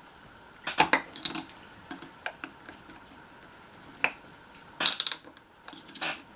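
Small metal clicks and clinks of a hand tool working at a lawnmower carburetor's center jet to pull it out. The clicks come in short clusters: several about a second in, a single one around four seconds, and more around five and six seconds.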